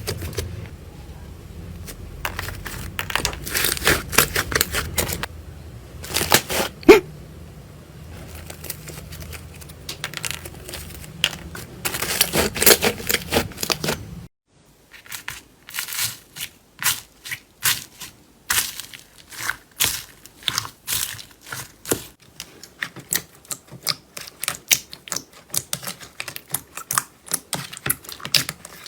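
Slime being squished and pressed by hand, giving clusters of crackling, popping clicks. The audio cuts abruptly about halfway through to another slime clip with quicker, more even clicking.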